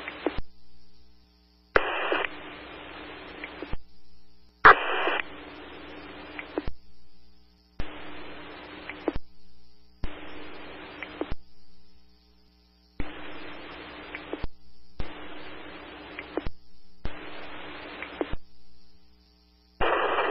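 Scanner radio static: a run of short, abruptly cut keyed transmissions with no voice, about eight bursts of hiss over a low hum, each one to two seconds long, with short silences between. Two of them open with a brief high tone.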